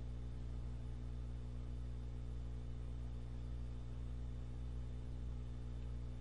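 Steady low electrical hum with an even faint hiss over it, unchanging throughout.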